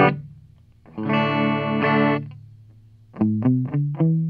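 SG electric guitar played through a small solid-state bass amp with no effect circuit in line, the amp's plain baseline tone. A strummed chord rings and fades about a second in, then a quick run of single picked notes starts near the end and settles into a held note.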